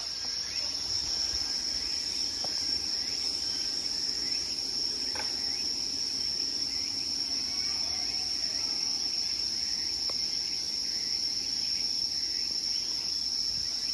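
Insects singing in a chorus, one steady, unbroken high-pitched trill, with a few faint clicks.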